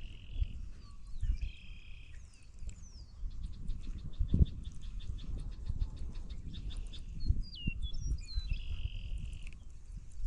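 Songbirds singing: downward-sliding whistles and a buzzy trill near the start and again near the end, with a run of quick ticking notes in the middle. Low thumps and rumbles sound under the birdsong.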